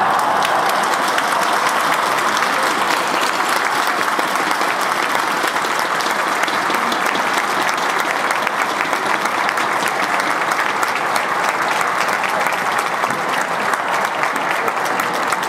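Stadium crowd applauding steadily, a dense, even patter of many hands clapping.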